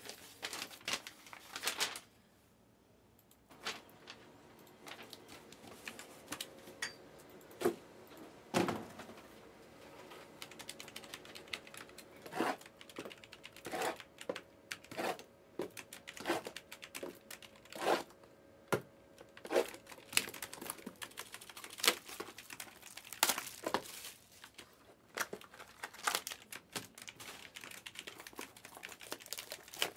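Panini Obsidian trading-card boxes and packs being handled on a table: irregular clicks, taps and crinkling of wrap and cardboard.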